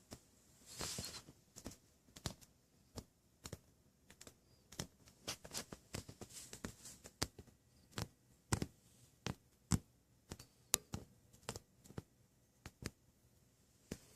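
Scattered light clicks and taps, irregular at a few a second, with short rustling near the start and again around six seconds in.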